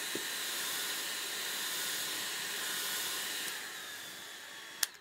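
Philips hair dryer blowing hot air, a steady hiss with a faint high whine, warming an iPhone 6S before its screen is pried up with a suction cup. Past halfway it dies away, the whine sinking slightly in pitch, and a sharp click comes just before the end.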